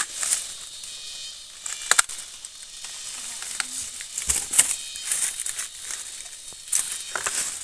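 Dry bamboo leaves and stalks rustling and crackling as they are brushed and pushed aside at close range, with a few sharp snaps and clicks scattered through.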